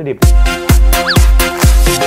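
Electronic dance music comes in about a quarter second in, with a heavy kick drum on every beat, a little over two beats a second, and falling synth swoops over it.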